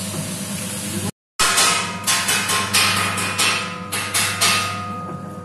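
Electric tiwul granulator running with a steady motor hum as its tilted steel pan turns moistened cassava flour. After a brief dropout about a second in, a regular knocking sets in, about three knocks a second.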